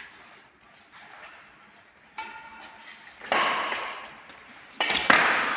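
Badminton rackets striking the shuttlecock in a rally. The hits are sharp, each with a ringing tail; the loudest comes about three seconds in and two more come in quick succession near the end.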